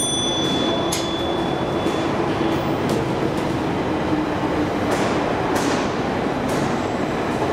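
Steady rumble of underground metro-station noise throughout. At the start a sharp click and a single high chime lasting about two seconds as the KONE inclined elevator's doors close, then a few faint clicks.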